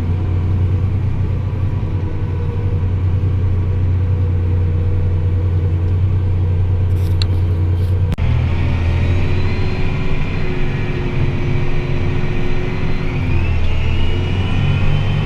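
Tractor engine running with a steady low drone. About eight seconds in the sound changes suddenly to a different engine note, and a higher whine rises near the end.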